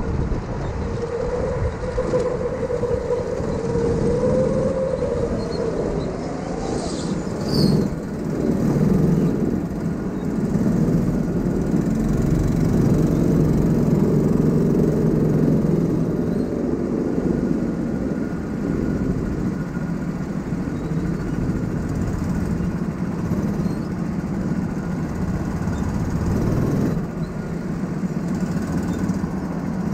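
Go-kart running at speed, heard from on board, its drive note rising and falling as it goes through the corners. There is a brief sharp noise about eight seconds in.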